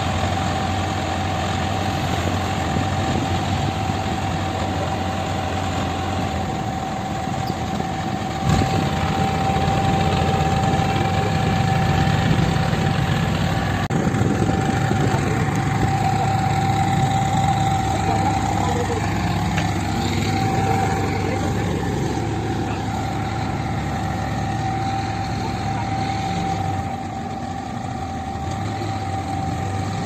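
Heavy diesel engines of a concrete transit mixer truck and a crane running steadily, with a steady high whine over the rumble and a single knock about eight seconds in.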